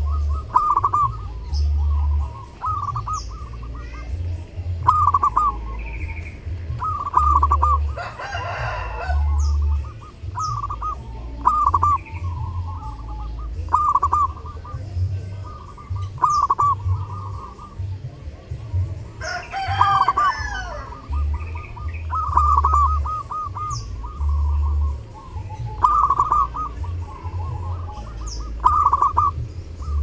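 Zebra dove (perkutut) cooing over and over, short trilled phrases about every one to two seconds. Twice, about eight and about twenty seconds in, a longer, louder call from another bird cuts in, and small birds chirp faintly high above.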